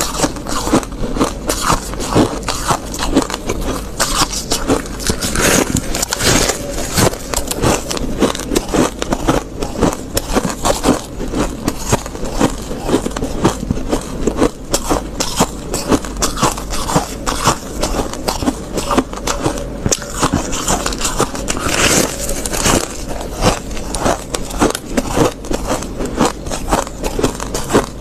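Soft freezer frost being chewed and bitten, a rapid, continuous run of crisp crunches and crackles.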